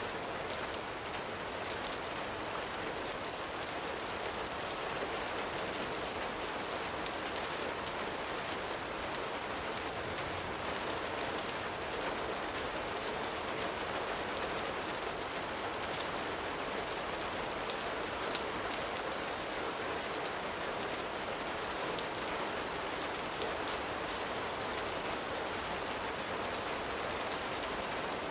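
Steady gentle rain falling, an even hiss sprinkled with faint scattered ticks of drops.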